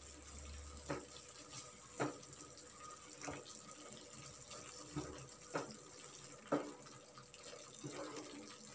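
A spatula stirs prawns and ground masala in a frying pan: several light, irregular clicks of the spatula against the pan over a faint, steady sizzle of the frying gravy.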